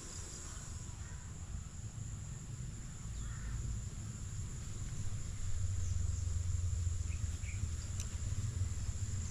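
Insects chirring in a steady high-pitched drone, with a few faint short chirps over it. A low rumble grows louder from about halfway through.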